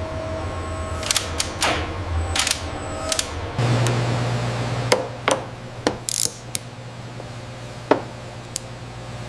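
Irregular sharp mechanical clicks and clacks of tool work over a steady low hum. The hum steps up in pitch and gets louder about three and a half seconds in.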